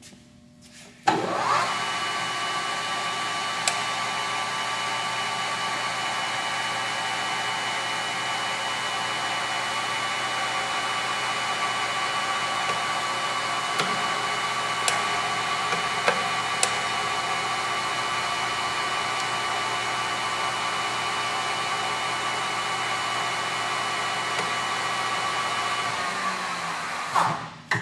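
Microweily TY-1660S 16" x 60" gap-bed lathe running under power: its 7.5 hp spindle motor and geared headstock start about a second in and run steadily with a steady whine. There are a few sharp clicks along the way, and it runs down and stops near the end.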